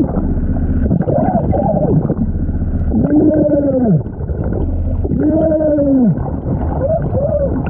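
A diver's joyful whoops ('jeee', 'wow', 'juhuuu') shouted underwater and heavily muffled: about five long calls, each rising and then falling in pitch, over a low rumble.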